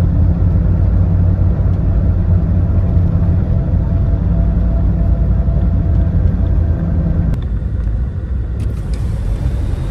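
Steady low rumble of engine and road noise inside the cabin of a small Fiat mini motorhome driving at highway speed, with an abrupt change in tone about seven seconds in.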